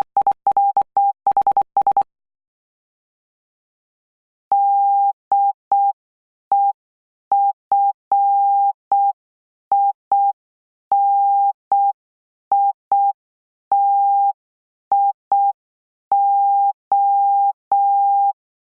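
Morse code sent as a single steady beep tone, keyed in short dots and longer dashes. A fast run of code ends about two seconds in, and after a pause the code resumes at a slower pace, spelling out the word "DEFINITION" letter by letter.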